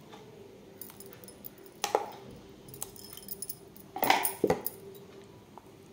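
A spoon clinking against metal a few times, once about two seconds in and again in a quick pair around four seconds, as ground masala paste is spooned onto fish slices in a pan, over a faint steady hum.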